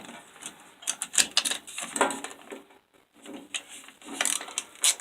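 Irregular clicks and knocks of handling a disassembled angle grinder and its parts, with a short quiet gap about three seconds in.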